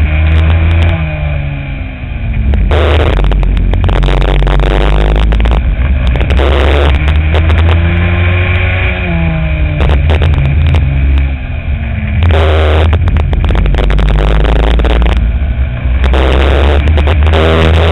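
Racing kart engine heard onboard at full race pace, its pitch rising and falling over and over as the driver accelerates and lifts through the corners. Wind buffets the microphone in loud gusts.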